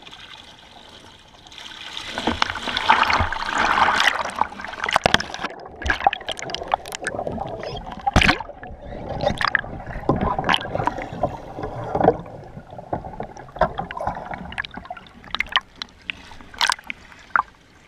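Lake water sloshing, gurgling and splashing around a kayak as it fills and sinks, with a loud rush of water from about two to five seconds in and many sharp splashes and knocks after it.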